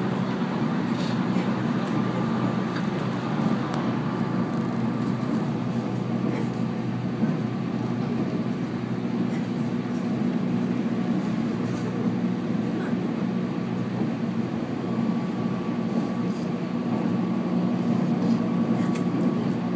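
JR 719 series electric train running at speed, heard from inside the passenger car: a steady rumble of wheels on rail, with a faint thin whine that comes and goes.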